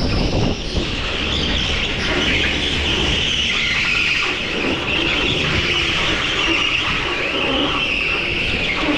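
Rental go-kart running hard on a concrete indoor track, heard from its own onboard camera: steady motor and tyre noise through the corners, with no break.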